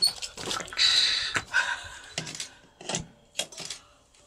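Lions snarling and growling over a zebra they have pulled down, in short irregular bursts.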